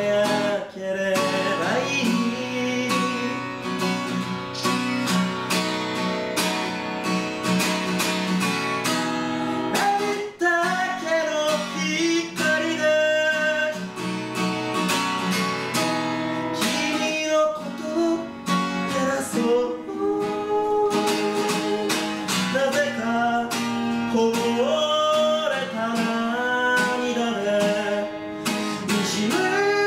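Acoustic guitar strummed steadily in chords, with a man's voice singing a melody over it from about ten seconds in.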